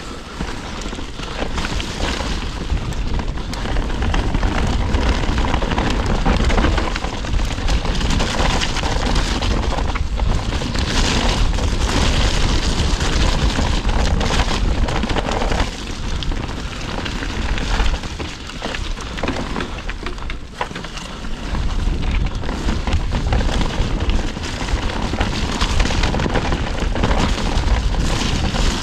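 Wind buffeting the microphone of a rider-mounted action camera as a mountain bike rolls fast down a dirt trail, with tyre noise and knocks and rattles from the bike over rough ground. It eases off for a few seconds past the middle, then picks up again.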